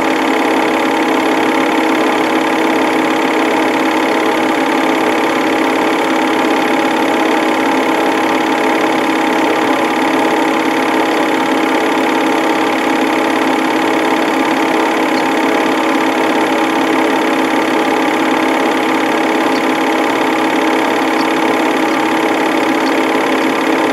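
Home-movie film projector running: a steady mechanical hum and whir with several fixed tones and no change in speed.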